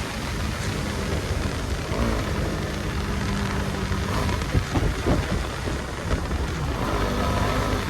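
Bajaj Pulsar NS200 BS6 single-cylinder engine running under way, its steady note under heavy wind rush on the microphone. A few brief thumps come around the middle, and a higher engine note comes in near the end.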